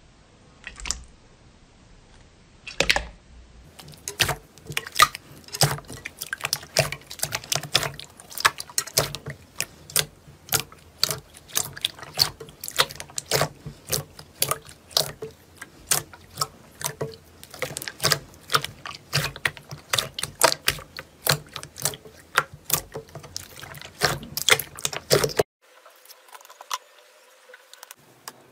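Thick green slime squeezed and pressed by hand in a glass bowl, giving a dense run of clicks and pops, several a second, after a few scattered ones at the start. The popping stops abruptly near the end.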